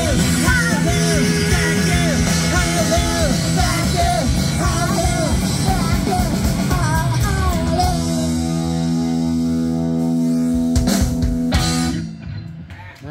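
Live rock band playing: electric guitar and drum kit under a sung vocal line. The singing stops about eight seconds in, a held guitar chord rings out with a few last drum hits, and the song ends with a sharp drop in level near the end.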